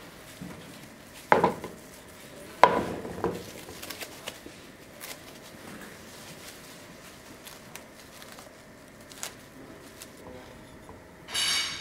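A steel dagger set down on a workbench board: two sharp knocks with a little ringing, then scattered small handling clicks. A short squeak comes near the end.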